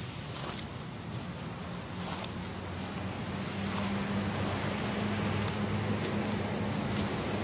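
Insects droning steadily and high-pitched, as in summer trees, over a low steady hum that grows a little louder a few seconds in.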